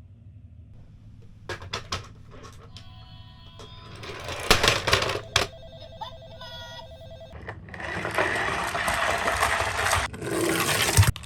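Electronic toy sound chips in miniature ambulances giving off ringing beeps and tones, mixed with loud clicks and knocks of plastic toys being handled. A loud rushing noise takes over about halfway through.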